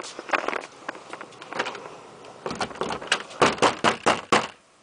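A locked interior door rattling and knocking in its frame as its knob is worked and the door is tugged, a run of sharp knocks that comes thickest and loudest in the last two seconds. The door will not open because its top lock is still fastened.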